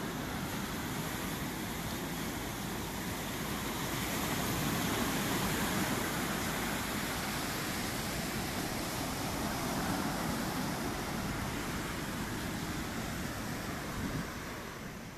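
Steady rushing outdoor noise with no distinct events, fading out near the end.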